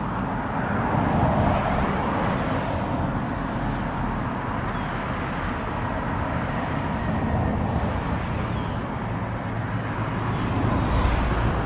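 Steady road traffic noise, vehicles running past with a low rumble that swells near the end.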